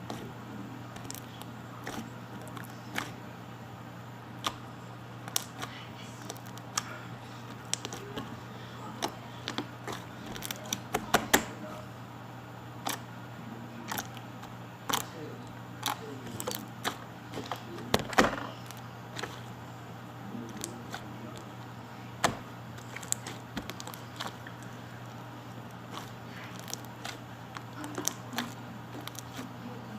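Slime being squished and poked by hand, making irregular sharp clicks and pops, densest and loudest about eleven and eighteen seconds in, over a steady low hum.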